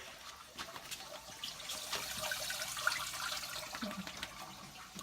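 Water splashing and trickling in a home fish tank, with small drips and clicks; it swells in the middle and eases off.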